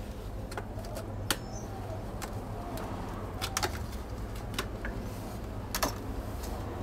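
Sharp clicks and rustles of small plastic parts packets being handled and snipped open with small scissors, over a steady low hum, with pigeons cooing faintly in the background.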